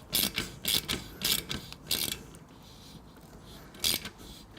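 Ratchet wrench with a 10 mm socket tightening an exhaust clamp bolt: four quick ratcheting strokes about half a second apart, a pause, then one more stroke near the end.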